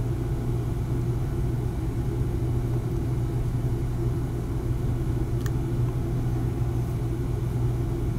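Steady low rumble and hum of a basement heating system running, with one faint tick about five and a half seconds in.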